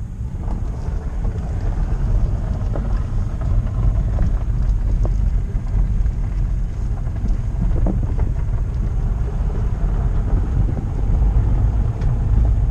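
Steady low road rumble and wind buffeting inside a moving car's cabin as it drives along a gravel road, with a few light ticks scattered through it.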